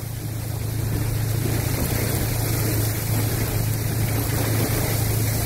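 Heavy rain and wet-road noise heard from inside a car: a steady low hum under an even hiss.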